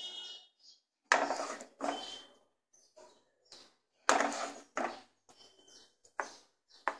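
A spatula scraping and knocking against a metal pan and a steel plate as thick, sticky halwa is scooped out, in about six separate clattering strokes, a few with a light metallic ring.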